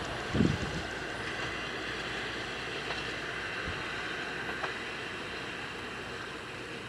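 KAI inspection train running away along the track, its steady rumble slowly fading as it recedes. A brief low thump about half a second in.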